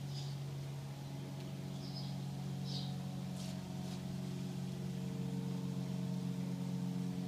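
Steady low machine hum made of several fixed tones, with a few short high bird chirps about two and three seconds in and a brief click midway.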